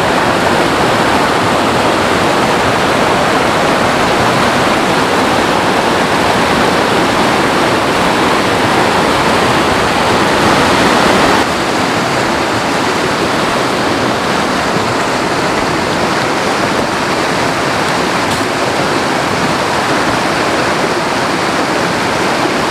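Rocky mountain stream rushing over boulders in small cascades: a loud, steady rush of white water that drops a little in level about halfway through.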